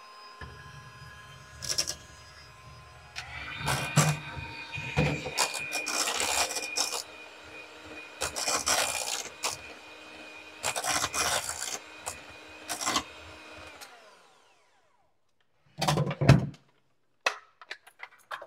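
Electric hand mixer running, its beaters whipping mashed potatoes and clattering against a stainless steel pot. The motor winds down about fourteen seconds in, and a few knocks follow near the end as the mixer is handled.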